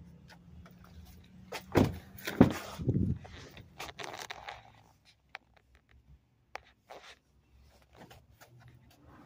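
Door and cab handling on a Ford F-250 pickup: three heavy thunks about half a second apart, then a short rustle and scattered small clicks.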